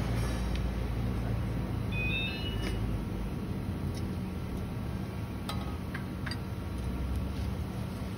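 Low, steady vehicle rumble. A couple of sharp clicks come about five and a half and six seconds in as the swing chair's steel tube frame parts are handled and fitted together.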